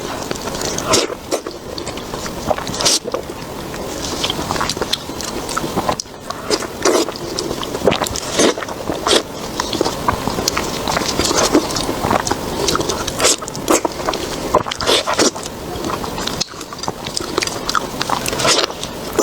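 Close-miked mukbang eating sounds: continuous chewing and crunching of food, with many sharp crunchy clicks.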